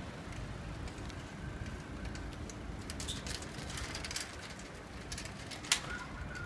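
Ride noise from a bicycle rolling along a city street: a steady rumble of tyres and wind on the microphone, with scattered light clicks and one sharp knock near the end.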